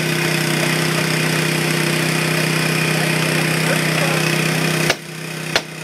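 Small engine of a hydraulic rescue-tool power unit running steadily. About five seconds in come two sharp cracks as the minivan's side window glass breaks.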